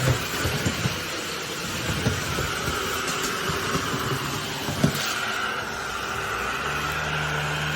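Miele Triflex HX2 Pro cordless stick vacuum running, a steady high motor whine with a few knocks in the first five seconds. A low hum joins near the end.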